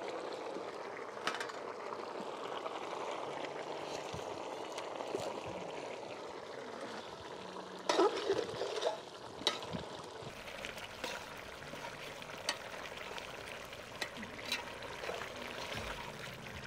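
Pot of chicken curry bubbling and sizzling as it cooks, a steady hiss with a few sharp clinks and knocks, the loudest about eight seconds in.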